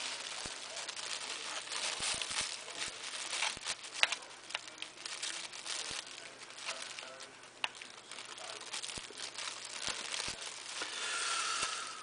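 Thin plastic bag crinkling and rustling under hands, with scattered sharp clicks from pliers working at a hard plastic security tag.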